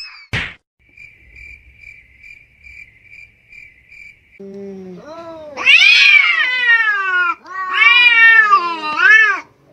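Two cats in a standoff, yowling at each other: a low growl rises into two long, wavering yowls in the second half, loud and drawn out. Earlier, a faint high chirp repeats about twice a second.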